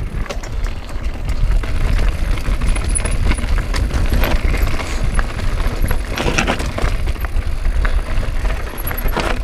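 Mountain bike riding down a rough dirt singletrack: tyre noise and the bike rattling over bumps, with a few louder clatters, the strongest a little after the middle and near the end. Under it runs a heavy low rumble of wind and vibration on the action camera.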